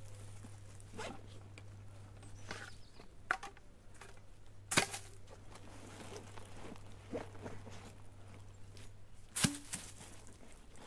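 A canvas backpack being handled and adjusted: soft rustling of fabric and straps with scattered sharp clicks, two louder ones about five seconds in and near the end.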